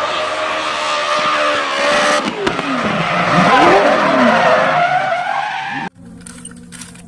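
A Volkswagen Beetle rally car's air-cooled flat-four engine, revving hard and rising and falling in pitch as the car passes at speed on a gravel road, with tyre and gravel noise. The sound cuts off suddenly near the end.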